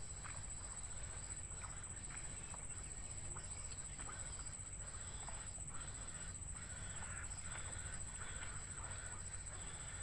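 Nestlings in a grass nest giving short, faint calls, scattered through and more frequent in the second half. Under them run a steady high-pitched whine and a low rumble.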